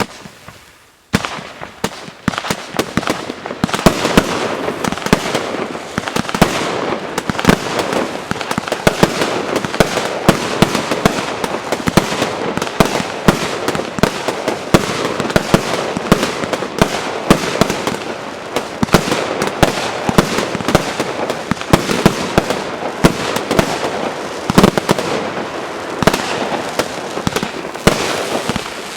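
A consumer fireworks battery (cake) from the J-Fireworks JF5441 'Black Out Eight' assortment firing. About a second in it breaks into a rapid, continuous barrage of sharp shots and bursts that carries on without a pause.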